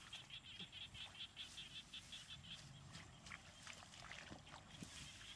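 Faint, rapid, high-pitched chirping from a small animal, about five or six pulses a second, which grows faint about halfway through.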